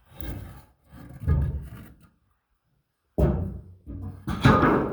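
Wooden 2x4 boards knocking and scraping in uneven bursts as a board is pulled out of a homemade drywall lift and the lift is let down, with a dead gap of about a second in the middle.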